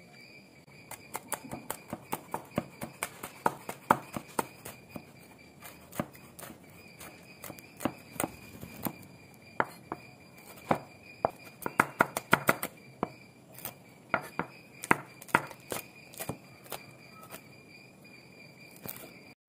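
A large steel knife chopping green chillies on a wooden cutting board: sharp knocks in quick runs, starting about a second in. A steady high-pitched whine sounds behind it.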